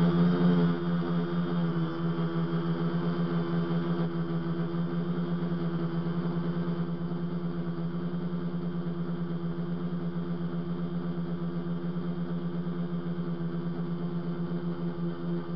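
Electric motors and propellers of a multirotor tricopter humming steadily in flight, heard through its onboard camera, with a low buzzing note and higher overtones that hold nearly constant in pitch.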